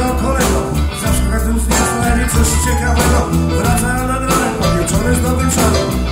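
Rock band playing live at full volume: electric guitars, bass and drums driving a steady beat, with a male singer's voice over them.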